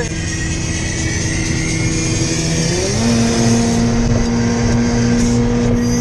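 Car engine and road noise heard from inside the cabin while driving. About three seconds in, the engine note climbs quickly to a higher pitch and then holds steady there.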